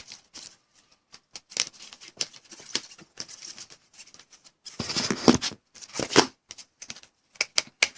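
Trading cards in plastic sleeves and holders being handled and laid out: a run of rustles, slides and light clicks, busiest about five seconds in.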